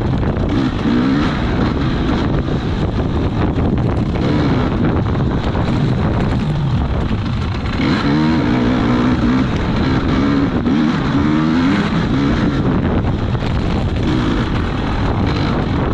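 Off-road racing engine running hard and revving up and down over and over, with loud rumble and wind noise throughout.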